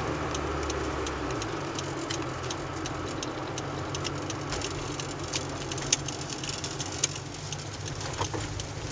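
A moving car's engine and road noise heard inside the cabin, steady and low, with frequent light ticks and two sharper clicks late on.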